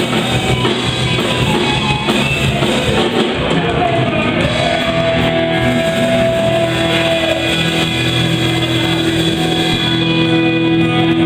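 Live worship band playing a rock-style song, with drum kit and guitar; long held notes carry through the second half.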